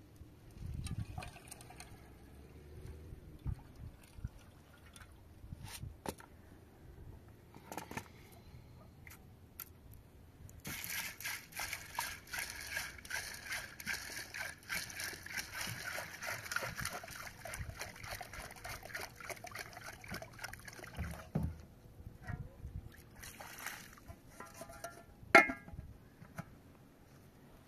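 Water poured from a plastic jerrycan into a metal pot, splashing steadily for about ten seconds from roughly a third of the way in. Scattered knocks and scrapes of the pot come before it, and a sharp clank near the end.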